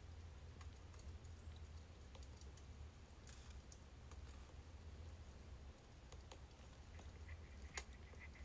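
Faint crackling of burning birch logs: scattered sharp pops and clicks, the loudest near the end, over a low steady hum.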